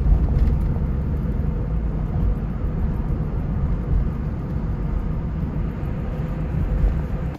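Car driving, with a steady low rumble of engine and road noise.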